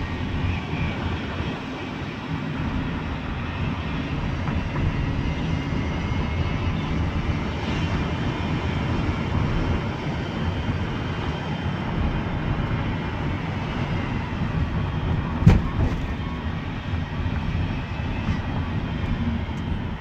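2011 Toyota Sienna AWD driving with the window open, its rear differential giving off a whine over the road and engine noise. A mechanic traced the whine with a stethoscope to the viscous coupler at the front of the rear differential, a part the owner takes to be defective. A single sharp knock about fifteen seconds in.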